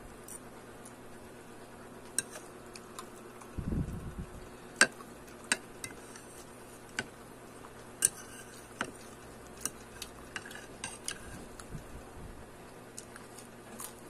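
Close-up eating sounds: scattered sharp clicks and taps of a metal fork and dishes, with a low thump about three and a half seconds in.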